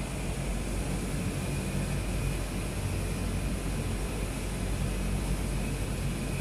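Steady low machine hum with an even hiss over it, unchanging throughout: background machinery running.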